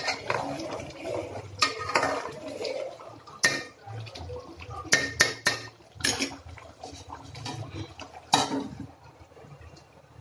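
A metal utensil clinking and knocking against a cooking pan: a series of sharp clinks, several in quick succession around the middle.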